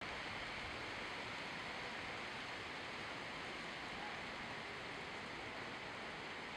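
Steady, even outdoor background hiss, with no distinct events.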